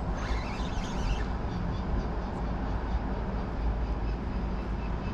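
Steady rumbling roar of wind and rushing water below a river dam, with wind buffeting the microphone.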